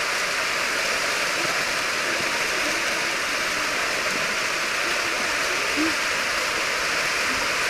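Steady rush of a waterfall pouring over rock, with faint distant voices now and then.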